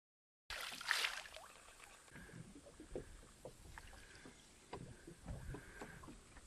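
Faint knocks and clicks aboard a small fishing boat, with a louder rustle about a second in. The sound cuts in abruptly half a second in, after a stretch of dead silence.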